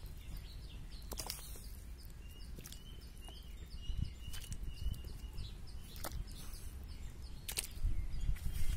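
Outdoor ambience: a small bird chirping in quick repeated notes, a low rumble of wind on the microphone, and a few sharp knocks as pieces of cow leg bone are set into an aluminium pot of water.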